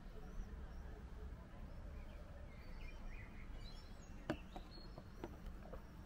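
Quiet outdoor ambience with a low hum and faint birds chirping in the distance. About four seconds in, a sharp tap as a wine glass is set down on the balcony ledge, followed by a few lighter taps.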